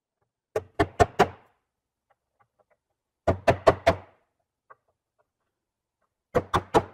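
Three quick runs of four sharp knocks each, about three seconds apart: brown cam locks being tapped into the 20 mm holes in the side of a racking cabinet, three per side.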